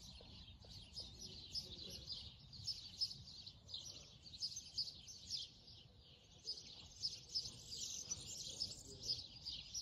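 A chorus of small birds chirping and singing, many calls overlapping without a break, over a faint low rumble.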